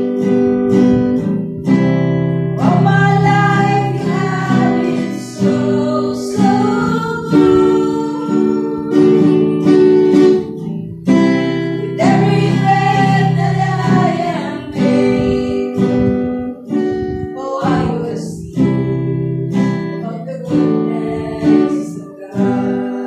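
Acoustic guitar strumming chords while women's voices sing a worship song melody over it.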